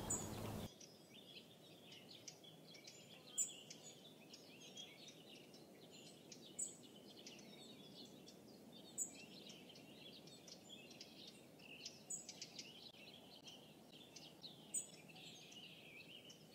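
Faint chorus of songbirds twittering, with a short high chirp repeating every few seconds over a low background hiss.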